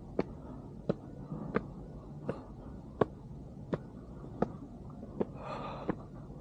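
Footsteps at an even walking pace, about one and a half steps a second, each a sharp click, with a short hiss near the end.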